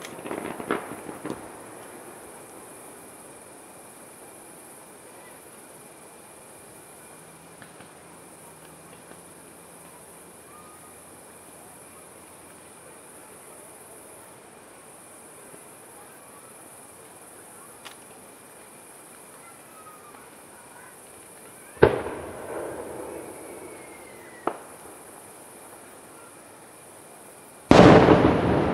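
Distant fireworks display: a few crackles at the start, a long lull filled by steady insect chirping, then a sharp bang about two-thirds through, a smaller pop a couple of seconds later, and a loud shell burst near the end with a trailing echo.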